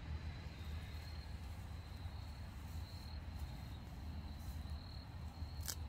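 Crickets trilling steadily in the background over a low rumble, with one sharp click near the end.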